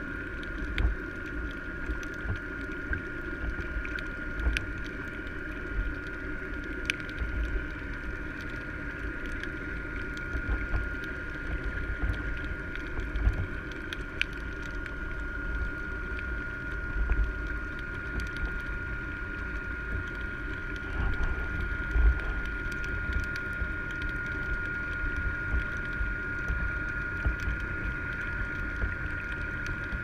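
Muffled underwater sound through a camera housing: a low rumble with irregular dull thumps and faint clicks, under a steady high whine.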